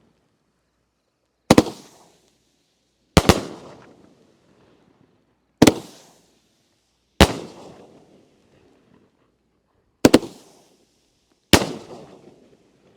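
Consumer fireworks cake firing: six sharp booms about one and a half to three seconds apart, each trailing off in echo. A couple of them sound doubled, as two shells fired together break at almost the same moment.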